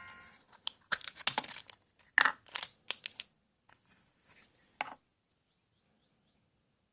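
A quick run of short crinkling, rustling noises, about a dozen over four seconds, that cuts off suddenly into silence.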